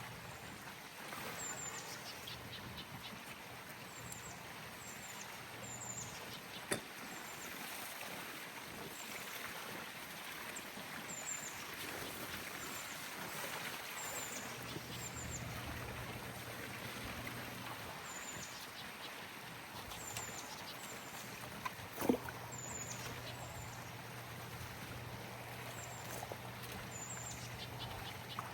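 Outdoor ambience: a steady hiss with a bird repeating a short, high chirp about once a second, a low hum that comes and goes, and a couple of sharp clicks.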